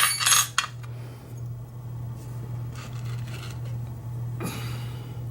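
A brief jingle of metal keys being picked up and sorted, then faint handling of small metal lock parts. A steady low hum runs underneath.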